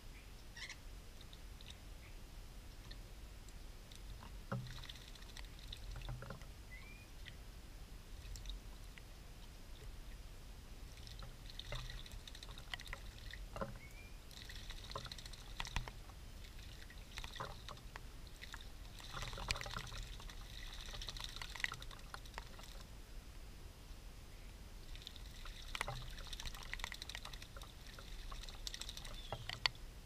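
European starlings splashing as they bathe in a bird bath, water sloshing and spraying in repeated bursts of wing-flapping, the busiest stretches about halfway through and near the end.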